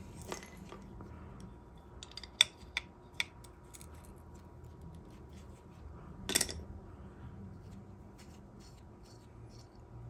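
Small metal clicks and handling noises of hand tools and carburetor parts on a workbench. There are three sharp clicks about two and a half seconds in and a short scrape about six seconds in, over a faint steady hum.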